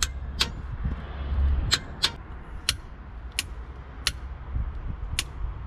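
A torque wrench clicking as the nuts on the ARP cylinder-head studs reach their set torque: about eight sharp single clicks at uneven spacing, over a steady low hum.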